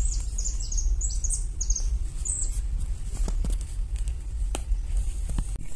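Small birds chirping in a quick series of short, high notes through the first couple of seconds, over a steady low rumble. A few faint clicks follow later.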